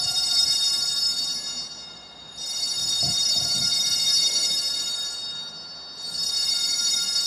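Altar bells ringing at the consecration, marking the elevation of the host. Each ring is a bright, high, shimmering peal that fades and then starts again, about two and a half and six seconds in.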